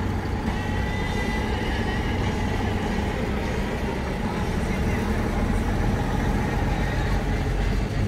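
Heavy diesel lorry engine running steadily at low revs as a vintage ERF lorry drives slowly across the grass.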